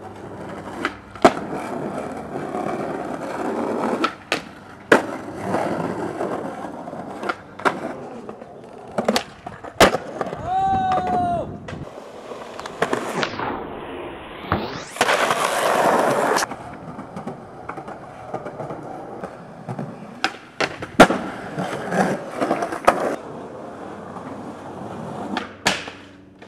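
Skateboard wheels rolling on asphalt and concrete, broken by sharp clacks of the tail popping and the board slamming down on landings over several tricks.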